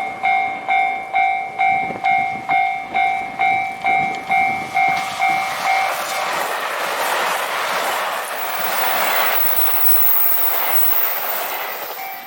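Japanese level-crossing alarm ringing, a rapid two-tone ding a little over twice a second. About five seconds in, a JR Hokkaido Kiha 261 series diesel limited express crosses at speed. Its wheels clatter and its engines run, drowning out the bell until the train clears near the end.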